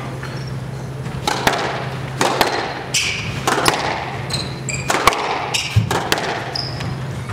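Squash rally: the rubber ball smacking off racquets and court walls in a quick, uneven series of hits, with short sneaker squeaks on the hardwood floor. A steady low hum runs underneath.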